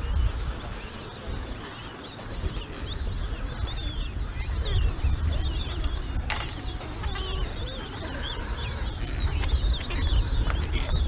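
Penguin colony calling: many overlapping short squawks and chirps from adults and chicks, with wind rumbling on the microphone. A single sharp click about six seconds in.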